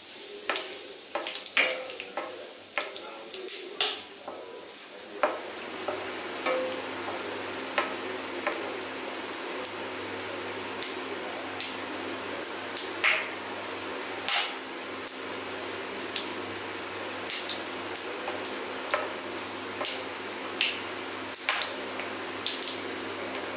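Cinnamon, cloves, cardamom, bay leaf and fennel seeds sizzling in hot oil in a steel kadai as a wooden spatula stirs them, with frequent sharp pops and clicks. The sizzle becomes steadier and louder about five seconds in.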